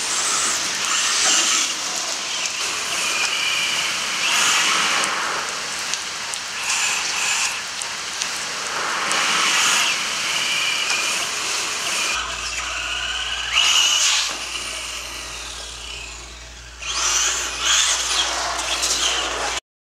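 Castle 1406 brushless electric motor of an RC truck whining as it repeatedly speeds up and eases off, over a steady hiss of rain and tyre spray on wet pavement. About twelve seconds in, a steady low hum joins the sound.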